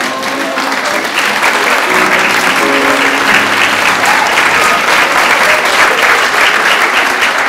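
Audience applauding, the clapping swelling over the first second and then holding steady. The last notes of the song's backing music fade out under it in the first few seconds.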